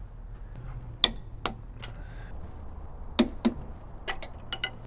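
Click-type torque wrench clicking as bolts reach their set torque of 75 to 80 foot-pounds. Two sharp clicks about a second in and two more about three seconds in, then a quick run of lighter ratchet ticks.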